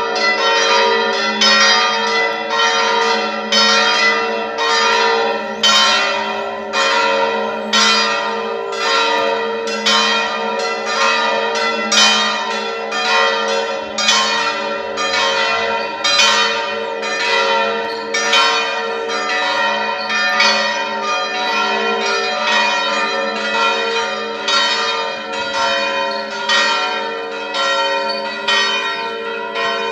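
The four bells of San Cerbone Cathedral's bell tower ringing together in full swing (a distesa, the 'plenum' peal). Their overlapping strokes come about twice a second over a steady hum of the ringing bells.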